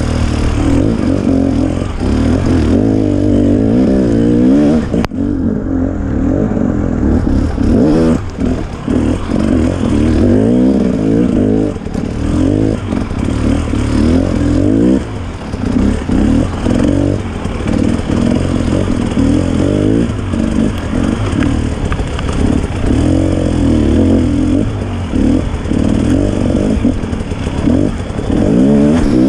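KTM 300 XC two-stroke dirt bike engine being ridden hard over rough ground, revving up and falling back again and again. There is a sharp knock about five seconds in.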